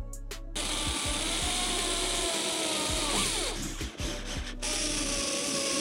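Electric drill-driver driving screws into pine boards. The motor whines under load and winds down sharply about three seconds in, then starts again about a second later.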